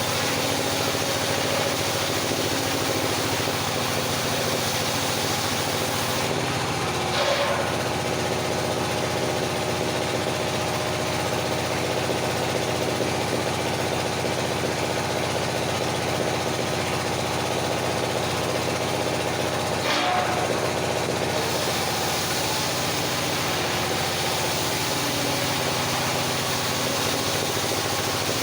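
Engine-driven circular sawmill running with a steady machine hum. Its tone shifts for about fifteen seconds in the middle, with a brief knock near the start and near the end of that stretch.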